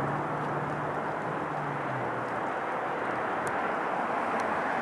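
Boeing 747-8F freighter's four GEnx-2B turbofans heard from a distance as it climbs out after takeoff: a steady jet noise, with a low hum in it that fades out about two seconds in.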